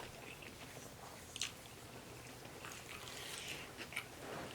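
A person chewing food close to the microphone, soft and wet, with a few small mouth clicks.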